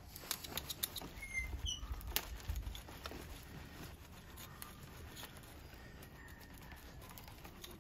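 Root hook scratching and picking through a dense, matted juniper root ball, with many small crackles and clicks of roots and soil giving way. The crackling is busiest over the first few seconds, then thins out.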